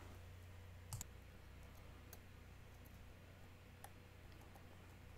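A few faint, sharp clicks of metal watchmaker's tweezers against a rusted cover plate from a watch's automatic works, the loudest about a second in, over a steady low hum.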